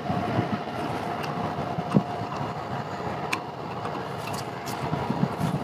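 Steady low rumble with a faint even hum, broken by a few light clicks and a knock about two seconds in as hands wrench at a rusty steel gooseneck drop pipe, trying to twist it off by hand.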